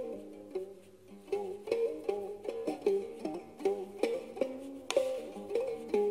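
Khse diev, the Cambodian single-string zither with a gourd resonator, plucked in a melody of ringing notes about two or three a second, several of them gliding in pitch.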